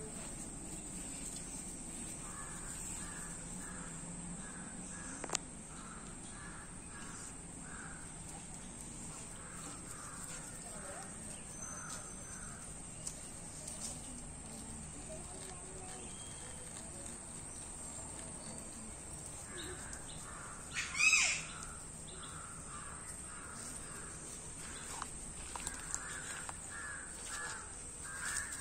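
Crows cawing in runs of several calls, over a steady high hiss. About three-quarters of the way through comes one louder, sharper call that sweeps up and down in pitch.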